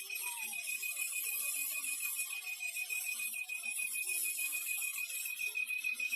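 Cricket-like chirping from a 2015 Daihatsu Ayla 1.0 with the engine running: a steady, high-pitched chirp pulsing many times a second. The owner traced it to the clutch, and it goes away when the clutch adjustment is loosened.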